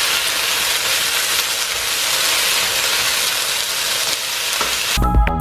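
Strips of beef flank sizzling in a hot wok as they brown, stirred with a spatula. Electronic music cuts in suddenly near the end.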